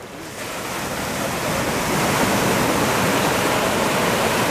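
Ocean surf washing onto a boulder-lined shore, a steady rush of waves that grows louder over the first couple of seconds and then holds.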